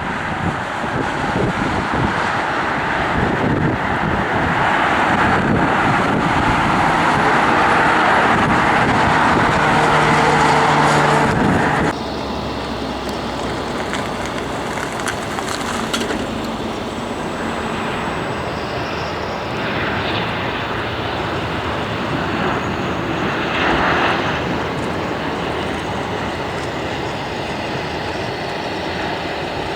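Airliner engines: a loud, even engine noise that builds over the first twelve seconds, then cuts abruptly to a quieter, steady engine noise.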